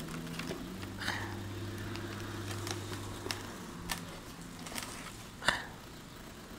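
Faint handling noise of a cardboard box and a plastic bag being moved by hand: a few scattered clicks and rustles, the sharpest about five and a half seconds in, over a low steady hum in the first half.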